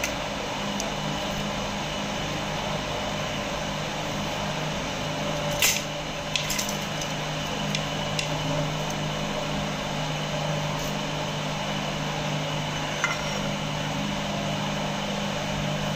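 A steady low hum from an appliance in the room, with a few light clicks and taps of wooden ice-cream sticks and plastic kulfi-mould lids being handled. The sharpest click comes about six seconds in, a few more follow, and one comes near the end.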